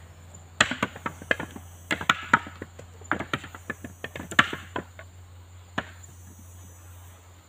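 Husked coconuts knocking against each other as they are handled one by one for counting: irregular sharp knocks, sometimes two or three in quick succession.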